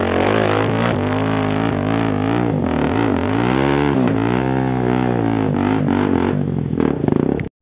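Dirt bike engine revving under load as the bike climbs a steep, slippery dirt trail, its pitch rising and falling with the throttle. It cuts off abruptly near the end.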